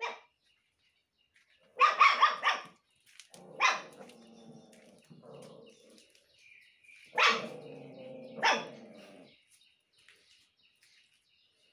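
Dog barking in bursts: a quick run of several barks about two seconds in, then three more single barks spaced a few seconds apart, each trailing off into a lower, drawn-out sound.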